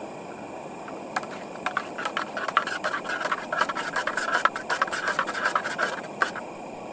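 A blue utensil stirring and scraping inside a metal pot, a quick run of scratchy clicks lasting about five seconds. The pot sits over a lit butane canister stove whose burner gives a steady hiss underneath.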